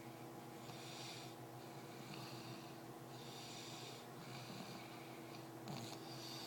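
Baby snoring in its sleep: faint, breathy snores repeating in a steady rhythm, about one every second and a half.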